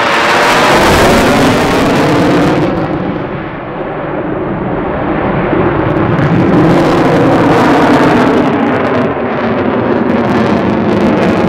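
Jet noise from the F-35A's single afterburning turbofan as it passes, loud with a sweeping, phasing whoosh at first. The sound thins and dips about three and a half seconds in, then builds again about six seconds in as the jet pulls up into a climb with its afterburner lit.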